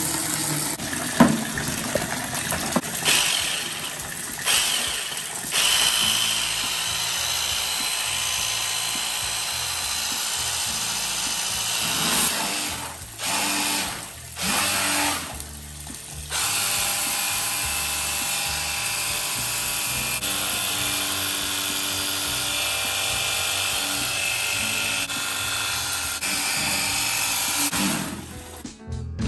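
Cordless pressure washer running and spraying water: a steady hiss that cuts out briefly twice about halfway through.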